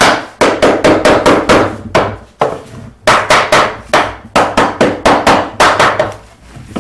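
Hammer tapping rapidly on wood, about four blows a second, with a short pause about two and a half seconds in and stopping about six seconds in: freshly glued 2x4 inlay boards being knocked level in a table-top frame.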